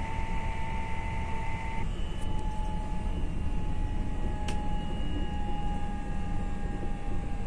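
Electric multiple unit heard from inside the carriage: a steady rumble of running on the rails with a high traction-motor whine. About two seconds in, the whine shifts to a new pitch and then slowly falls as the train slows for a stop. A single sharp click comes near the middle.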